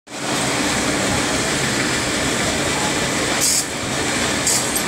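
Small belt-driven electric brass-cutting machine running with a steady drone and hum, joined twice in the second half by short, high hissing bursts as the tool cuts into the brass.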